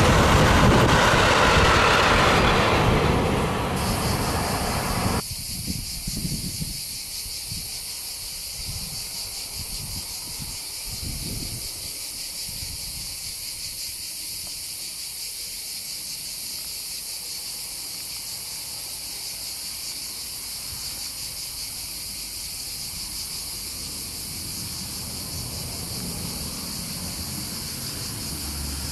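A freight train of tank wagons rolls past with a loud rumble and clatter that fades, then cuts off about five seconds in. A steady, high-pitched chorus of cicadas follows, with the faint rumble of a train approaching near the end.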